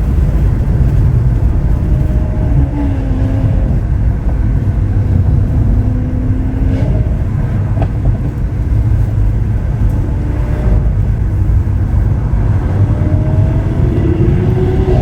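Lamborghini Aventador SV Roadster's V12 running at a steady cruise under a heavy low rumble of road and wind noise. The engine note drifts up and down a little and climbs near the end.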